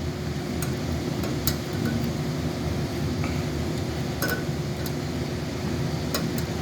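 A handful of light metal clinks and taps, spaced irregularly, over a steady low hum.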